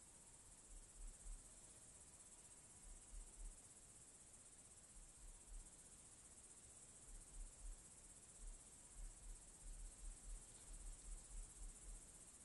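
Faint, steady high-pitched chirring of crickets at night, with soft irregular low thumps underneath.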